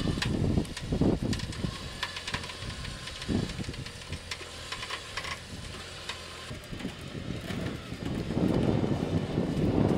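Gusting wind buffeting the microphone in uneven low rumbles, swelling into a louder, steadier blast about eight seconds in, with scattered light clicks and knocks.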